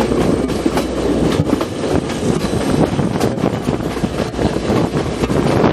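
Passenger train running along the track, heard from the open window of one of its carriages: a steady loud rumble with irregular clattering knocks of the wheels on the rails.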